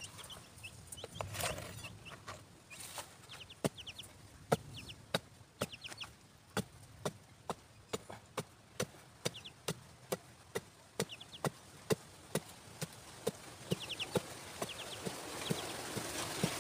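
Pointed iron digging bar stabbing into hard, dry dirt: sharp strikes repeating steadily, about two a second, tailing off near the end.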